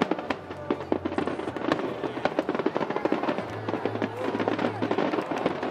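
Rapid barrage of aerial firework shells bursting, many bangs in quick succession, with music playing underneath.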